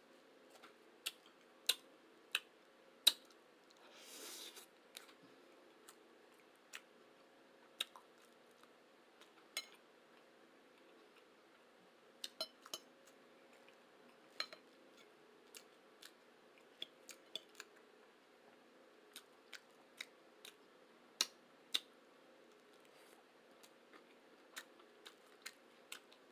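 Close-miked eating: a scattered, irregular series of sharp wet clicks and smacks of chewing and utensils, with a brief rustling hiss about four seconds in.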